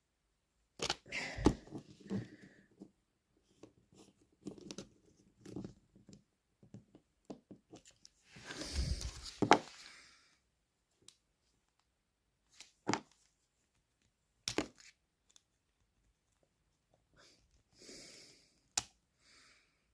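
Clicks, small knocks and scrapes of a plastic model diesel locomotive being prised apart by hand to free its bogie catch, with a longer rasping scrape about nine seconds in and a few single sharp clicks after it.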